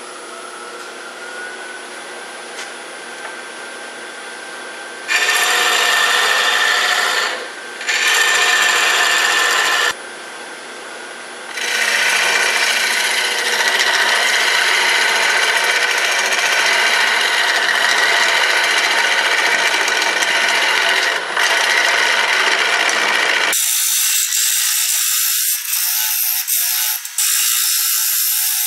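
Round cutter hollowing the inside of a segmented wood bowl spinning on a wood lathe, over the steady hum of the running lathe. Two loud bursts of cutting come about five and eight seconds in, then a long continuous cut from about twelve seconds, turning thinner and more rattling near the end.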